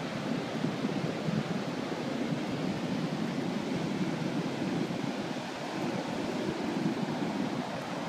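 Ocean surf, a steady rushing noise, with wind on the microphone.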